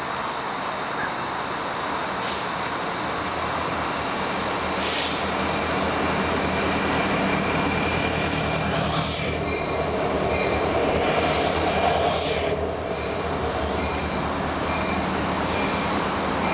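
Freight train cars rolling past on the rails with a steady high-pitched wheel squeal. A few short, sharper screeches rise above it.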